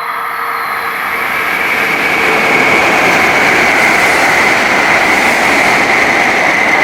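N700S Kamome Shinkansen train passing through the station at speed without stopping. It is a loud rushing roar of air and wheels that builds quickly over the first two seconds, then holds steady with a whine running through it.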